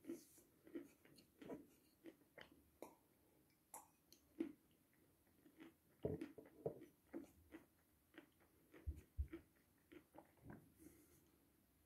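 Close mouth sounds of a person chewing dry edible chalk: soft, irregular crunches and clicks, one or two a second. There are a couple of low bumps about nine seconds in.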